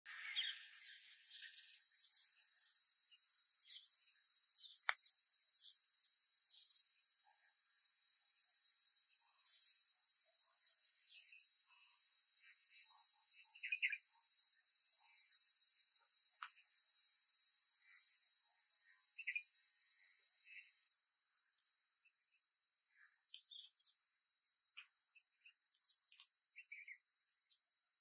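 Many short bird chirps and whistles over a steady, high-pitched insect drone. The drone stops about three-quarters of the way through, leaving scattered chirps.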